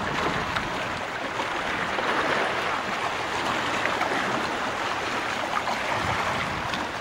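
Steady hiss of small waves washing on a sandy shore, mixed with breeze.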